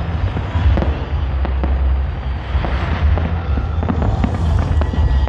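Fireworks going off in quick succession: many sharp bangs and crackles over a steady low rumble.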